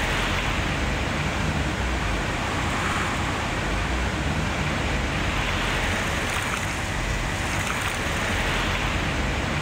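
A steady rushing noise, even throughout, with a low rumble beneath it.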